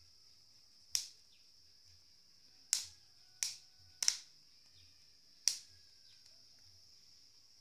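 Five sharp pops and cracks at irregular intervals from maize cobs roasting over glowing charcoal, over a steady high-pitched trill of crickets.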